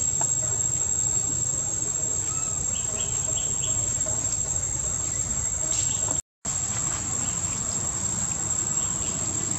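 Steady, high-pitched drone of insects in the forest, over a low background rumble, with a few faint short chirps about three seconds in. The sound cuts out completely for a moment about six seconds in.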